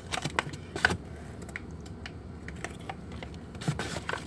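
A scattered run of light clicks and taps, as of things being handled and set down close to the microphone.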